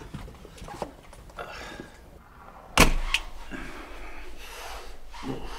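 A door bangs shut a little under three seconds in, the loudest sound, followed by a second, smaller click. Before it come faint knocks and shuffling.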